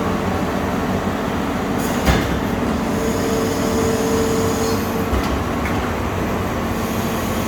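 Arburg 720 S injection moulding machine running on a test run after repair: a steady mechanical hum with a sharp knock about two seconds in and another about five seconds in, and a steady whine from about three seconds in to nearly five.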